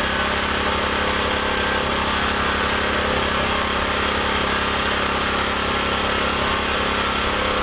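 Small portable generator engine running steadily at constant speed with an even, rapid firing beat, with its fuel lines empty of gasoline and fed HHO gas from an electrolyzer.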